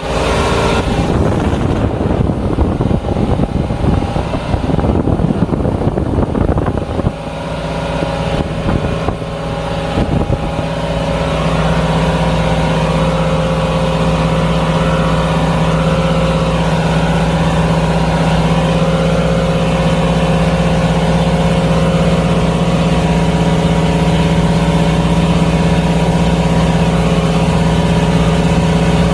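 Marine engine on a test run: uneven and rough for about the first seven seconds, then settling into a steady, even run.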